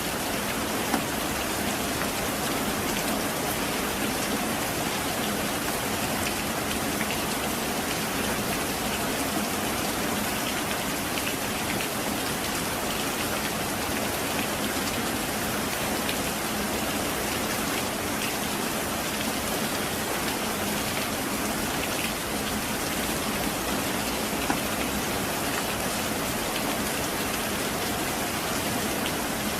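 Heavy rain falling steadily, a dense, even hiss of countless drops on surfaces, with two brief sharper ticks, one about a second in and one later on.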